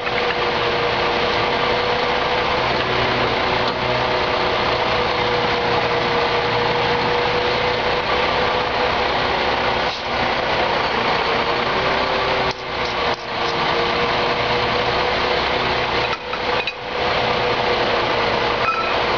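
Truck engine idling steadily, with a constant whine over a low hum.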